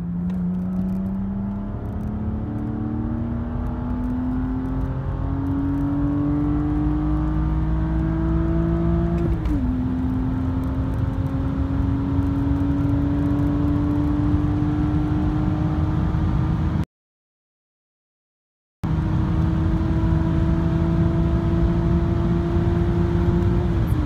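BMW 330i's N52B30 straight-six, with a BMW Performance rear silencer, accelerating hard from inside the cabin, its note climbing steadily with the revs. About nine and a half seconds in the pitch drops suddenly at an upshift of the manual gearbox and starts climbing again, and another shift drops it right at the end. The sound cuts out completely for about two seconds before the end.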